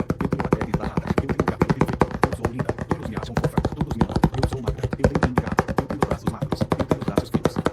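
Rapid, continuous tapping: many sharp taps a second, with no break.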